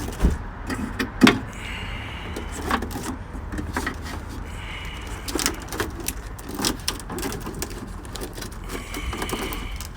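Handling noise from a car's trunk wiring harness and its plastic clips being pulled and worked loose: scattered clicks, knocks and rustling, over a steady low hum.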